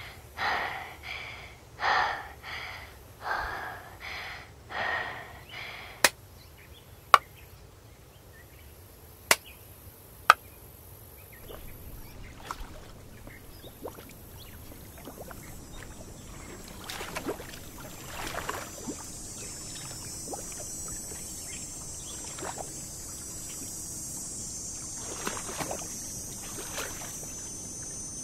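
A voice laughing in short rhythmic bursts for the first few seconds, then four sharp clicks. After that come scattered splashes of shallow water over a steady high hiss.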